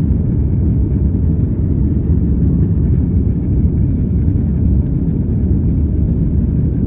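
Airbus A330-300 jet airliner in motion: a steady, loud, low rumble of engine and airflow noise, unchanging throughout.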